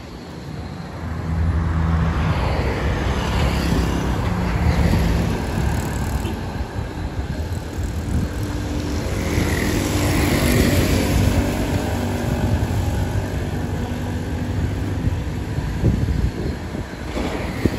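Road traffic: motor vehicles passing along the road with a steady engine drone that swells up about two seconds in and stays loud for most of the stretch.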